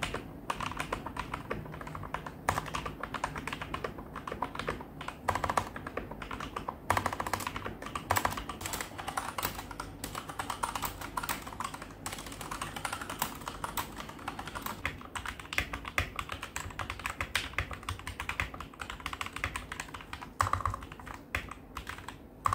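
Typing on a budget Digital Alliance Meca Fighter mechanical keyboard modded with hand-lubed Gateron Black linear switches and PE foam: a continuous, uneven run of keystroke clacks, played as the sound test of the finished mods.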